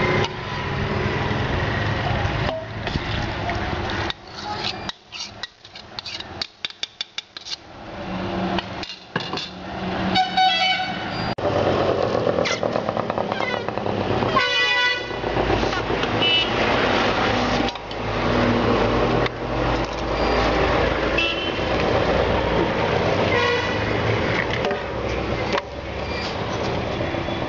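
Street background noise with voices and two horn honks, one about ten seconds in and a clearer one about fourteen seconds in.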